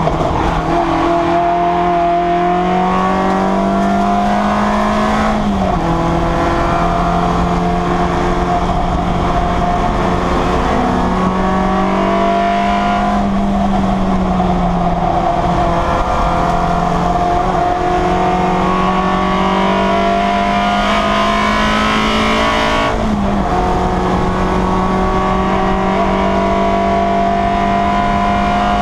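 Citroën Saxo race car's four-cylinder engine heard from inside the cabin at racing speed. Its note climbs over several seconds, then drops sharply at upshifts about five, eleven and twenty-three seconds in, and it eases off gradually near the middle.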